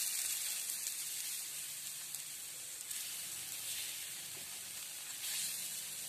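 Oil sizzling steadily around a gram-flour tomato omelette frying on a flat griddle (tawa).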